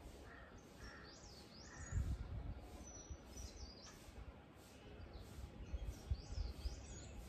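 Wild birds calling outdoors: a few short caws in the first two seconds and two bouts of quick whistled chirps that sweep up and down, with low rumbles of wind on the microphone.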